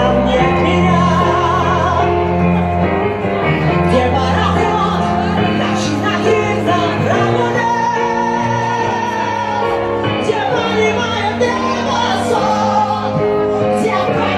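A song with a singing voice over instrumental backing. The voice holds long notes with vibrato over a steady bass line.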